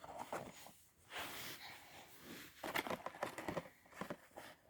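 Small cardboard box being handled and worked out of a cardboard advent calendar: rustling and scraping cardboard, with a run of short knocks and scrapes in the middle.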